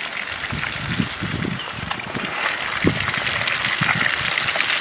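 Turmeric-rubbed magur catfish sizzling and crackling in hot oil, a dense spitting hiss that grows louder toward the end, with a few low muffled bumps underneath.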